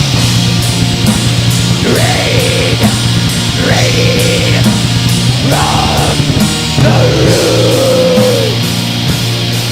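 Heavy metal recording: dense distorted guitars and steady, fast drum strokes, with four long, held vocal lines across the middle.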